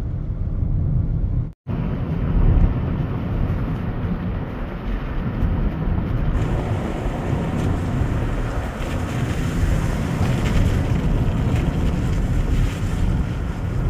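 Vehicle driving, heard from inside the cabin: steady low road and engine rumble with wind noise on the microphone. About a second and a half in, the sound cuts out for a moment, and the high wind hiss grows stronger after about six seconds.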